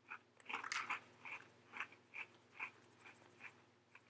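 A person chewing a crunchy butter coconut cookie topped with peanut butter, heard close up as faint, regular crunches about two to three a second that grow fainter and further apart as the bite is chewed down.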